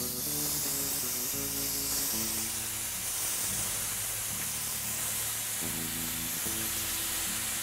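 Rice toasting in a hot frying pan, sizzling steadily, over background music with low, stepping notes.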